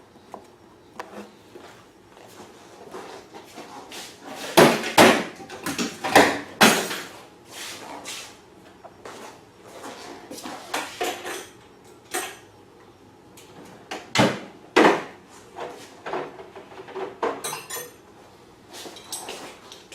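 Irregular knocks, clinks and rattles of small brass fuel fittings and tools being handled and screwed together on a workbench, with a cluster of louder knocks about five seconds in and again near fourteen seconds.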